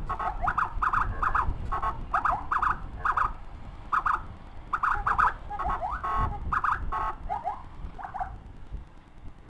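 Escort motorcycle's electronic siren tapped in rapid short blips and a few quick yelping sweeps, as a priority warning for the ambulance behind it, over the low rumble of the ride. The blips stop and the rumble drops near the end.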